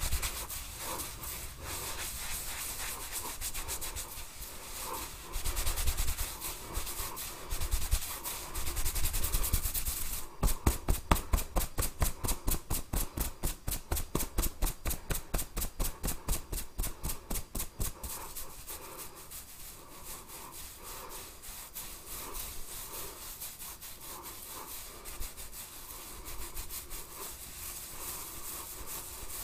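Hands rubbing and scratching through hair and scalp in a head massage. From about ten seconds in comes a run of quick, even strokes, about five a second, lasting some eight seconds, before the softer rubbing returns.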